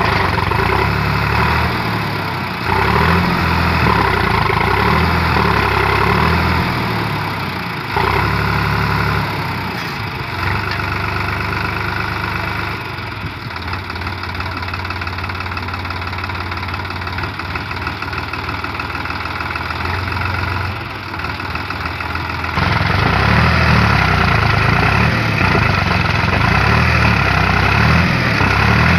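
Sonalika DI-35 RX tractor's diesel engine working hard while the tractor, stuck in loose sand, tries to pull a fully loaded sand trolley. The engine revs up and down, easing off for about ten seconds in the middle before rising again.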